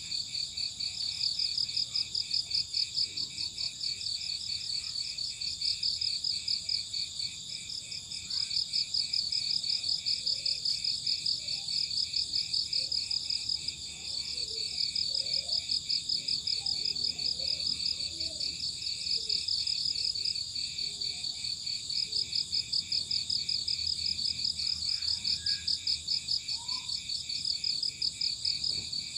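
Crickets chirping in a steady, rapidly pulsing high chorus that never stops, with faint short calls scattered underneath.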